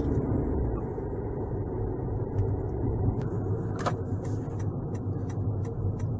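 Car interior while driving slowly on a city street: steady engine and road rumble, with one knock about four seconds in. From about five seconds in, the turn signal ticks about three times a second ahead of a left turn.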